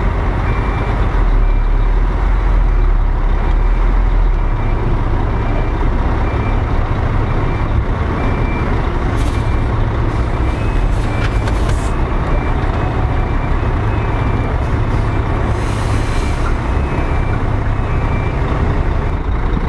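Heavy diesel truck engine running while the bitrem backs up, with a reversing alarm beeping at an even pace throughout. A few short hisses of air come in the second half.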